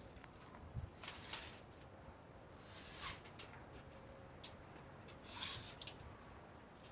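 Faint scuffs and rustles of someone moving about and handling things, with short scraping noises about a second in, around three seconds, and a louder one near five and a half seconds.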